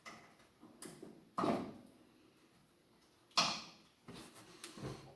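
Two sharp metal clunks about two seconds apart, with lighter clicks between and after, from handling the tools and the upper shock-mount hardware on the shock tower as the old front shock is freed.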